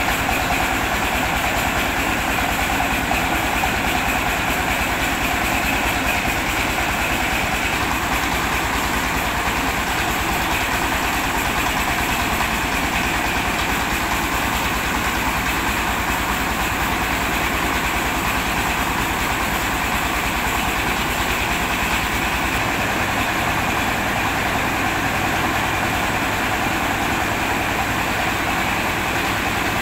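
Engine-driven mobile rice milling machine running steadily while milling rice: a continuous mechanical drone with a fast, even beat.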